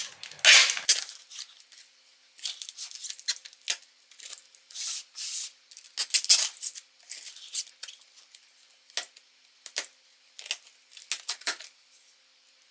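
A knife blade slicing and scraping along plastic packing tape on a cardboard box: a string of short, sharp, scratchy strokes in irregular runs with brief pauses between them.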